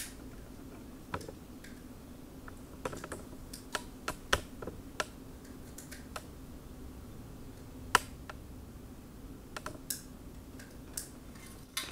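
Small, irregular clicks and taps of plastic being handled as wire ends are pushed into the push-in terminals of plastic lamp sockets (tombstones) on a retrofit bracket, over a faint low steady hum.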